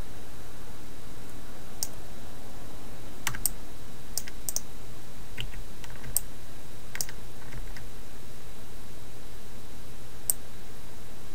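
About ten sparse, separate clicks of a computer keyboard and mouse, bunched between about two and eight seconds in, with one more near the end. They sit over a steady hiss and low hum from the recording.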